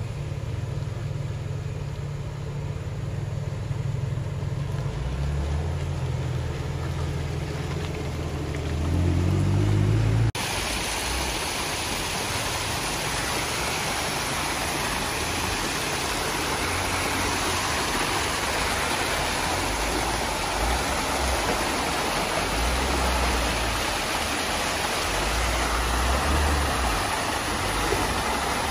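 Jeep Wrangler engine running as it crawls over a dirt mound, its pitch rising as it revs up about nine seconds in. After a sudden cut, steady rushing creek water with a low engine underneath as a Jeep Gladiator drives through the water.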